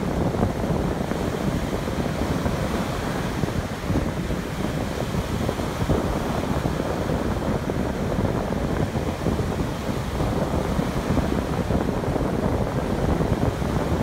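Small Atlantic waves breaking and washing up a sandy shore, an even, continuous rush of surf, with wind buffeting the microphone as a low rumble underneath.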